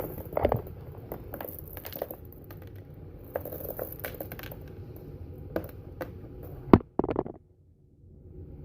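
Plastic airsoft BBs being pulled out of a wet sock into a paper-towel-lined container: scattered small clicks and rustles of handling, with one sharp knock about a second and a half before the end.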